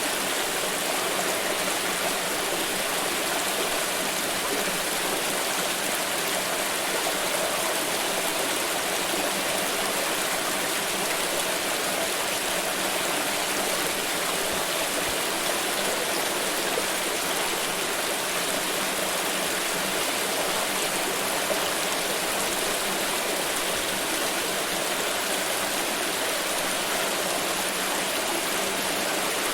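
Water flowing steadily in a stream, an even rushing with no pauses or changes.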